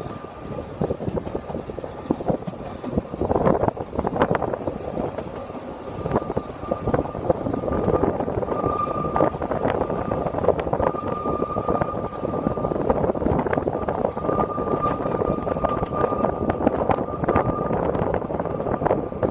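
Narrow-gauge steam train running, heard from a carriage window: steady rattle and clatter of the carriage wheels on the rails. A thin squeal comes and goes through the middle.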